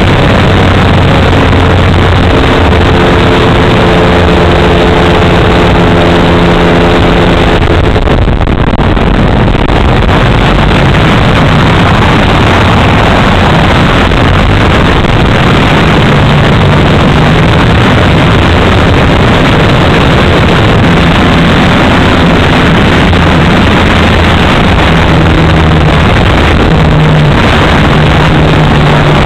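3W two-stroke gasoline engine and propeller of an RC aerobatic plane running at flight power, heard from a camera on the airframe as a loud, steady drone. Its pitch holds for the first several seconds, then shifts and wanders.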